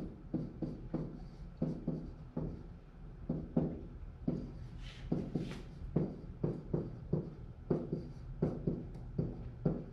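A stylus tapping and sliding on an interactive whiteboard as words are written, a string of short irregular taps over a steady low hum.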